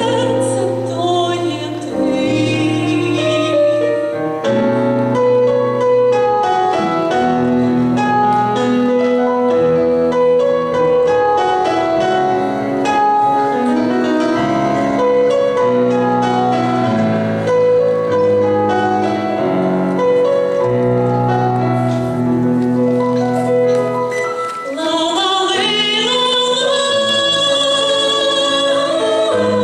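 Solo female voice singing a slow song into a microphone over an instrumental backing. In the middle the voice stops for an instrumental passage, then comes back near the end with a rising, wavering sung line.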